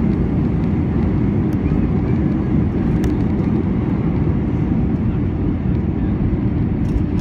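Steady low rumble heard inside the cabin of a four-engine Airbus A340 rolling on the ground after landing, from its engines and its wheels on the pavement. A few faint clicks sit over it.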